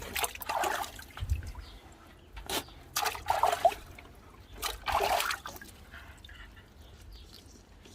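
Water splashing and trickling as a dog is bathed in a tub, in several short splashes a second or two apart.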